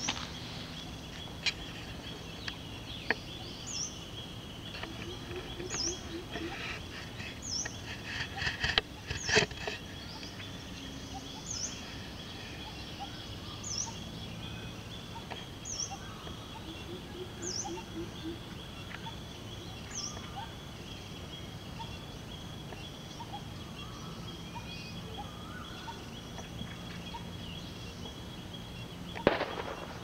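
Early-morning countryside birdsong: one bird repeats a short, high, downward call about every two seconds, with other birds calling lower now and then over a steady high insect drone. A few sharp knocks stand out, the loudest about nine seconds in and again near the end.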